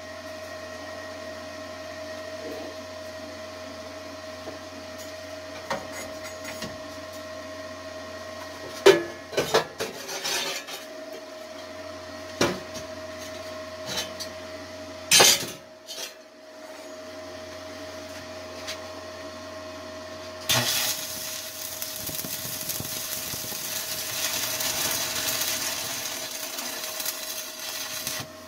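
Stick welding steel plate with 6013 rods. Over a steady background hum, a few sharp knocks on the plate come around the middle as slag is cleaned off. From about two-thirds of the way through, the arc crackles and hisses steadily as a new weld bead is run.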